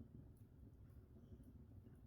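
Open log fire burning quietly: a faint low rumble with two faint crackles, about half a second in and again about a second later.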